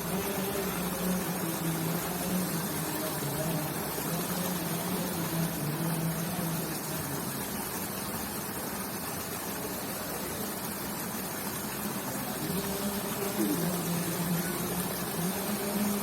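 Steady rush of flowing water with a low motor hum that fades about halfway through and comes back near the end.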